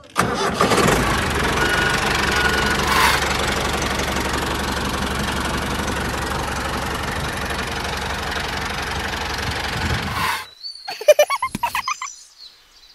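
A tractor engine running steadily with a fast, even beat, cutting off suddenly about ten and a half seconds in. A quick string of short, sharp sounds follows.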